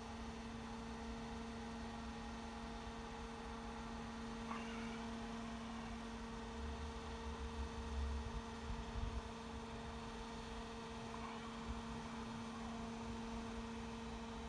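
Steady electrical hum at two fixed pitches, one low and one higher, with a low rumble swelling about seven to nine seconds in.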